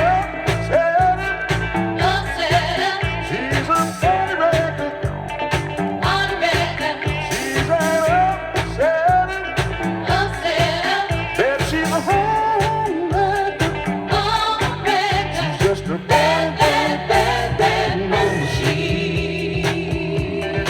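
Soul-funk song playing: a steady drum and bass groove with a bending lead melody over it.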